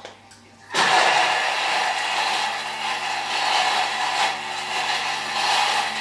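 Thermomix food processor motor running: a steady whirring hum with a broad hiss, starting abruptly about a second in.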